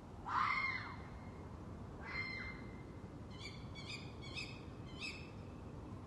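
Red fox screaming: a loud, hoarse, arching call about a third of a second in and a shorter one about two seconds in, then four short, higher calls in quick succession.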